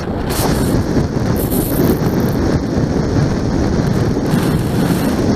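Wind buffeting the microphone of a camera on a 125cc motorcycle riding at road speed: a loud, steady, fluttering rush, with the bike's running noise mixed in.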